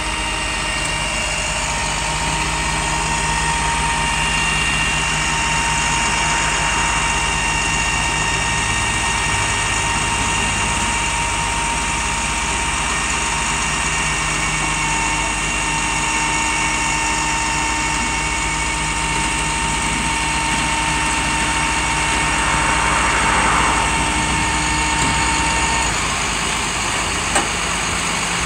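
Flatbed tow truck's engine running while its winch pulls a car up the tilted bed: a steady low hum with a high, even whine on top. The whine stops a couple of seconds before the end.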